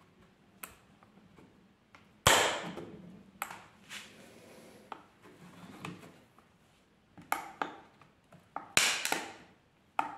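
Plastic casing of an external hard drive enclosure cracking and snapping as a screwdriver pries its factory-clipped halves apart: a series of sharp cracks, the loudest about two seconds in, more around four, seven and nine seconds.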